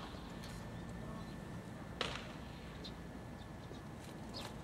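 Quiet ballpark ambience between pitches, with a few faint distant calls and one short, sharp knock about two seconds in.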